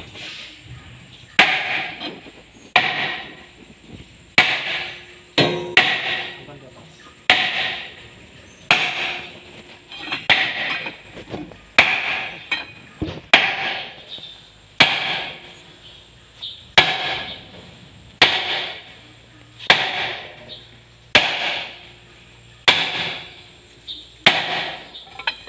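Sledgehammer blows striking the metal front hub housing of a Landini DT85 tractor's front axle, about one every one and a half seconds, each with a short metallic ring, as the housing is knocked loose to open the hub.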